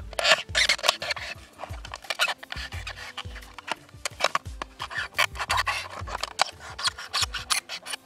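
Knife blade cutting into a thin plastic drink bottle: rapid, irregular rasping scrapes as the blade saws through the plastic wall, with some dull low thumps as the bottle is handled.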